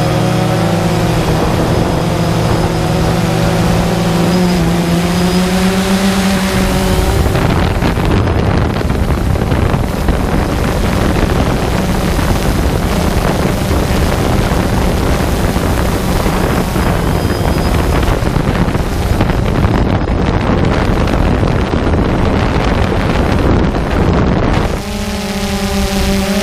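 Drone's electric motors and propellers whining, heard through the GoPro carried on the drone, as several steady tones that waver a little. From about seven seconds in, a rushing wind noise on the microphone covers the whine; the whine comes back clearly near the end.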